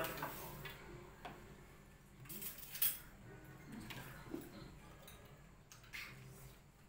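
Scattered clinks of steel spoons against stainless steel bowls and dishes as a family eats, a few seconds apart. The loudest cluster comes about halfway through.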